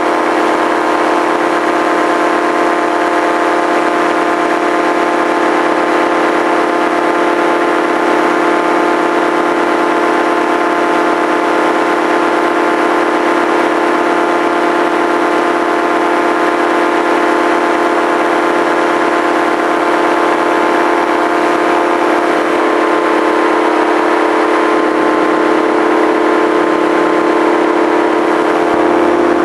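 Engine and propeller of a small aircraft running steadily in cruising flight, a constant drone.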